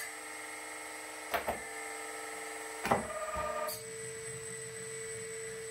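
Hydraulic pump of a LESU 1/14 RC wheel excavator running on a slow idle with a steady whine. Twice, about a second and a half in and about three seconds in, a sharp click comes and the note changes as the control valves are worked and the hydraulics take load.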